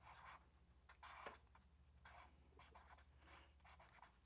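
Black felt-tip marker drawing on paper: about six short, faint scratchy strokes as a cartoon face's eyes, nose and mouth are put in, over a faint steady low hum.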